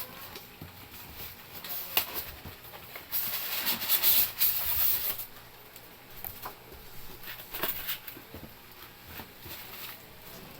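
Rustling and handling noises with scattered clicks, and a louder burst of hissing noise from about three to five seconds in.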